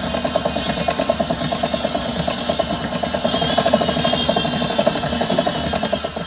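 Electric stand mixer running steadily, its beater churning eggs, sugar and canola oil into a creamy batter in a stainless steel bowl, with a quick regular pulsing from the turning beater. The motor stops right at the end.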